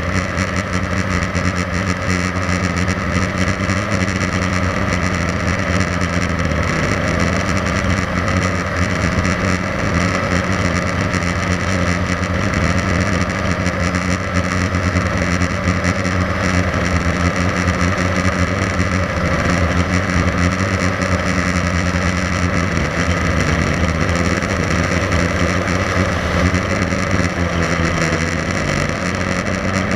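Blade 350 QX3 quadcopter's electric motors and propellers in flight, heard from its onboard camera: a steady, loud buzzing hum whose pitch wavers a little as it manoeuvres.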